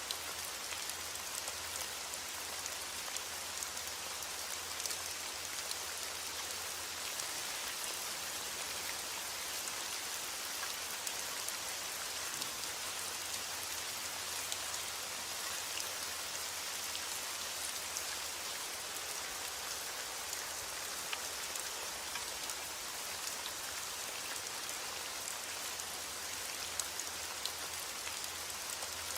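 Steady heavy rain falling, an even hiss with scattered sharper drop ticks standing out from it.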